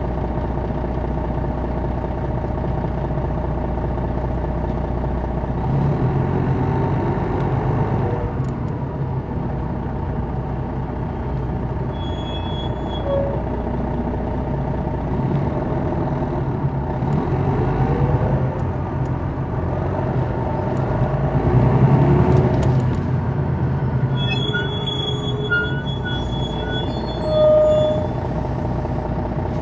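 2001 MCI D4000 coach's Detroit Diesel Series 60 inline-six diesel running, its revs rising and falling several times as the bus pulls away and changes speed, loudest about twenty-two seconds in. Brief high-pitched squeals come twice, about twelve seconds in and again around twenty-four to twenty-seven seconds.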